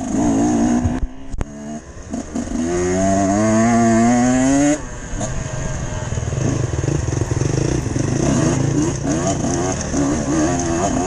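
Dirt bike engine ridden hard on a rough trail, heard from on board. The throttle is choppy, with a sharp knock about a second in. Then comes a long rising rev, the loudest part, which cuts off suddenly, followed by uneven on-off throttle.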